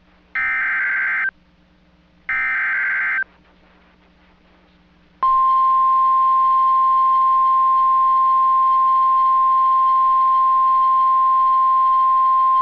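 NOAA Weather Radio alert signal: the last two bursts of the SAME digital header, each about a second of warbling data tones, then about five seconds in the steady 1050 Hz warning alarm tone begins and holds. Together they mark the start of a new warning broadcast, here a severe thunderstorm warning.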